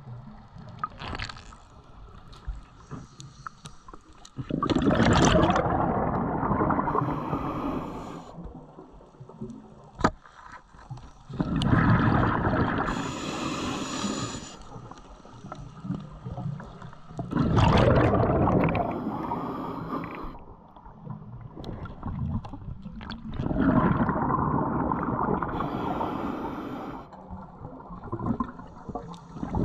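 Scuba regulator exhaust bubbling underwater: four long bursts of exhaled bubbles about six seconds apart, with quieter stretches between and one sharp click about ten seconds in.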